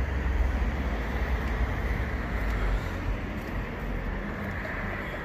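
Street traffic noise: a low rumble with a steady hiss that slowly fades.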